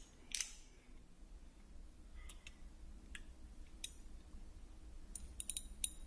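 A few sharp metal clicks from a socket, extension and ratchet being handled and fitted together, then a quick cluster of clicks near the end.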